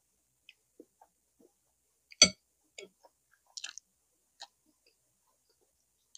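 Close-up eating noises from a person eating braised pork leg with rice: scattered short mouth clicks and smacks, with one sharp knock about two seconds in, the loudest sound.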